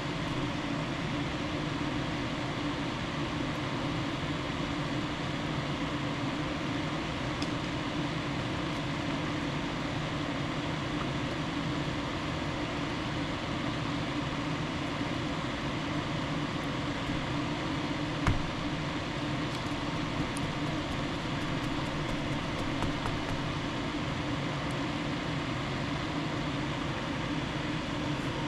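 Steady fan noise with a low hum, and one sharp click about two-thirds of the way through followed by a few faint light ticks.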